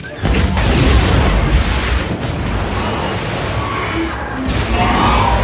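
Movie sound-effect explosions: a sudden loud blast about a quarter of a second in, then continuing booming and rumble.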